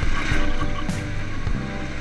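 Background music with a steady beat, over the low rumble of heavy machinery.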